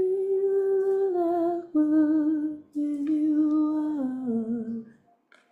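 A woman humming a slow, wordless tune in three phrases, each note held with a slight waver, the melody stepping downward to a low note near the end.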